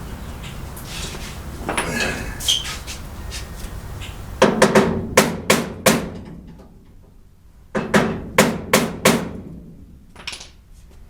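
Hammer blows in two quick runs of about five strikes each, with lighter tool clinks before them, knocking at a stuck screw whose head is worn and rusted down.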